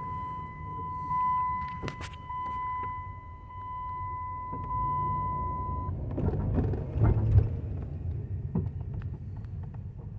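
Slow-rolling vehicle with a low, steady engine and road rumble heard from inside the cab, and a steady high electronic tone for about the first six seconds. A few light knocks come through, the loudest about seven seconds in.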